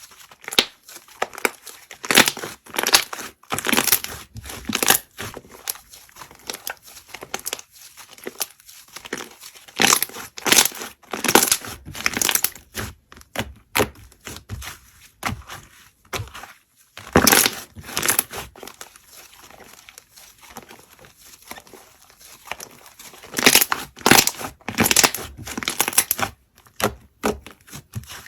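Slime being squeezed, stretched and pressed by hand: an irregular run of crackly squishes and small pops, coming in clusters with quieter gaps between.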